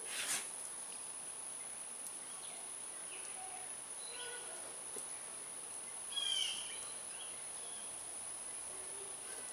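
Outdoor ambience: a steady high-pitched insect drone, with a bird giving one short falling call about six seconds in. There is a brief knock just after the start.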